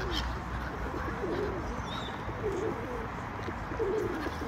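Feral pigeons cooing, a run of low coos every second or so.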